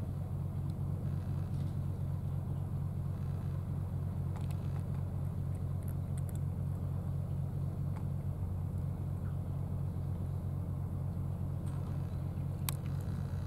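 An engine idling: a steady low hum that does not change, with a few faint clicks.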